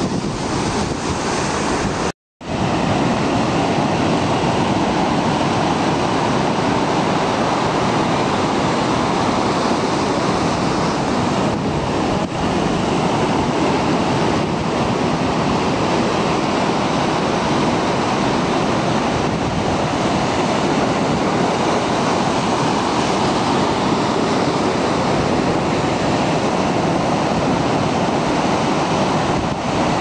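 Ocean surf breaking and washing over rocks: a steady, loud rush of waves. The sound drops out completely for a moment about two seconds in.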